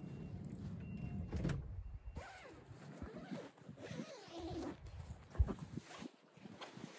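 Faint, wavering animal calls over outdoor ambience, with one sharp low thump about five and a half seconds in.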